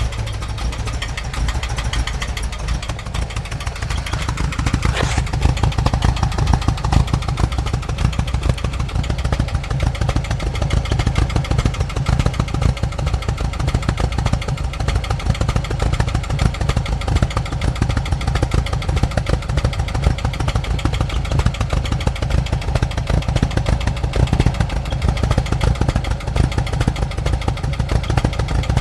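Exhaust note of a 1988 VW Vanagon's water-cooled flat-four idling roughly through a newly fitted catalytic converter and muffler. The uneven running is a misfire, which the owner has not yet traced and suspects may lie in the spark plugs or injectors.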